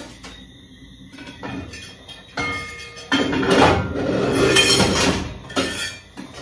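Metal cooking pots and lids clinking, clattering and scraping on a gas stovetop, light at first and loudest in the second half.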